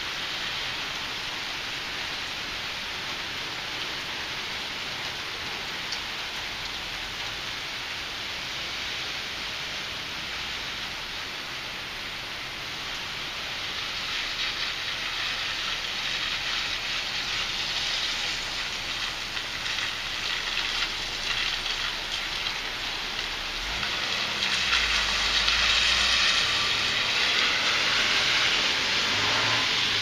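Heavy rain falling steadily as a dense hiss. It swells louder about halfway through and is loudest near the end, where a low rumble comes in underneath.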